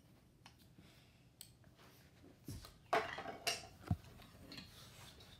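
Wooden toy train track pieces knocking and clattering together as they are handled and set down: a few light knocks, with a short clatter about three seconds in.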